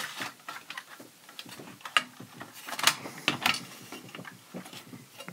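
A 3.5-inch floppy disk being pushed into the floppy drive of an Atari 1040STF, with a string of light plastic and metal clicks and rattles from the disk and the drive's bare metal case. The sharpest clicks come about two and three seconds in.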